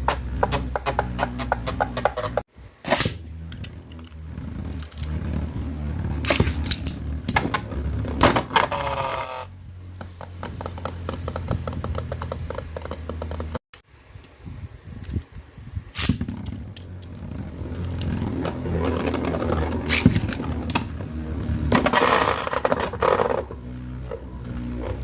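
Beyblade spinning tops, Lightning L-Drago 105HF and Rock Leone 145WB, spinning and clashing in a plastic stadium: a rapid, irregular run of sharp clicks and scraping, broken by two brief cuts.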